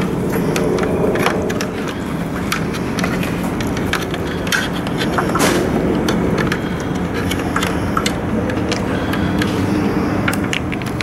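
A steady low mechanical hum, with many small clicks and rustles of electrical wires being handled and pushed through a rubber grommet.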